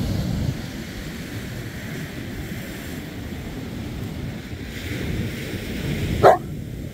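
Surf washing on the beach with wind buffeting the microphone, then about six seconds in a single short, loud bark from a black Newfoundland dog.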